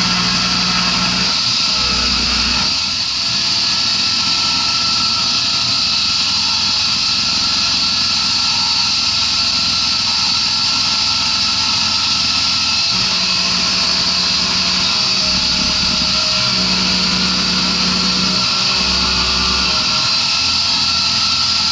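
CNC milling machine cutting aluminium: the spindle and end mill run steadily with a high cutting whine and hiss. A low hum from the axis drives comes and goes every few seconds as the table moves.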